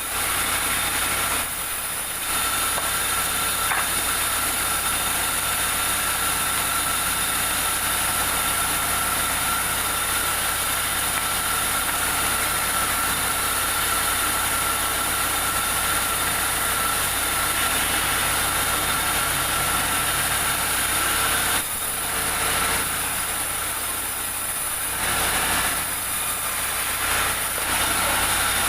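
Sawmill saw running steadily: a continuous mechanical drone with a steady high whine. It eases off briefly about two seconds in, and again for a few seconds a little past twenty seconds.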